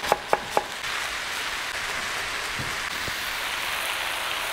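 Chef's knife chopping fresh ginger on a wooden cutting board: three quick chops in the first half second, over the steady sizzle of mushrooms and jackfruit frying in a wok. The sizzle carries on alone after the chopping stops.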